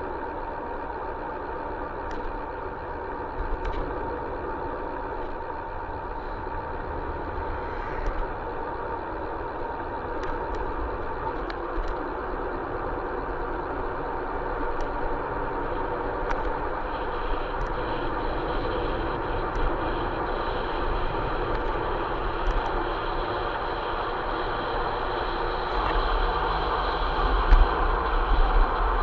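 Steady running noise of a vehicle travelling along a road, an even rush of tyre and wind noise over a low rumble, growing a little louder near the end.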